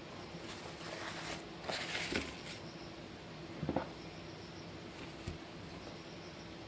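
Paper towel rustling in a glass bowl, then two soft knocks as glasses are set down on it.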